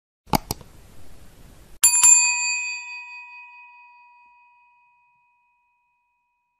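Two sharp clicks, then a single bright bell strike about two seconds in that rings out and fades over a few seconds.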